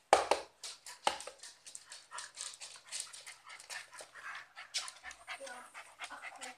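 A cocker spaniel and a West Highland white terrier play-fighting at close range: rapid panting and snuffling breaths over scuffling, with a sharp knock right at the start and another about a second in.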